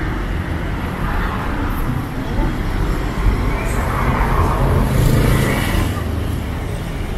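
Road traffic going by on wet pavement under heavy rain: a steady hiss over a low rumble, growing louder as a vehicle passes about five seconds in.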